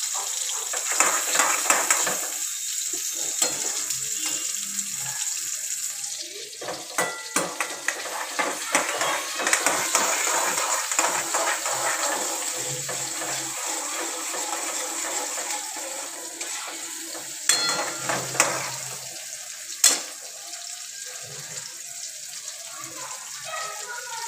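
Chopped onions and tomatoes sizzling in oil in a metal kadai, with a metal spoon stirring and scraping and clicking against the pan. The sizzle is strongest in the first few seconds, and there are a few sharper knocks of the spoon on the pan late on.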